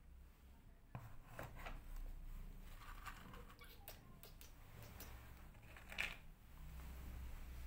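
Faint rustles and small clicks of dry cat kibble being handled and set down on a cardboard floor, the sharpest about six seconds in.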